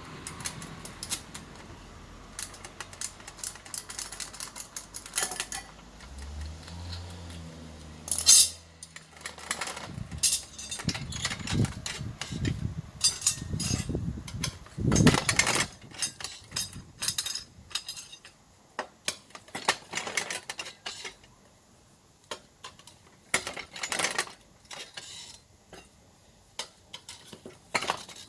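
Metal tools clinking, scraping and knocking on a motorcycle wheel and tyre during a hand tyre change, in irregular sharp clicks with a few louder knocks, the loudest about eight seconds in and a cluster around fifteen seconds in. A short low hum sounds from about six to eight seconds in.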